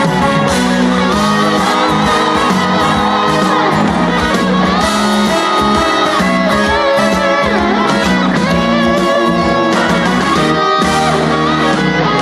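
Korean trot song's instrumental interlude between sung verses, the band accompaniment playing loud and steady with a melodic lead line.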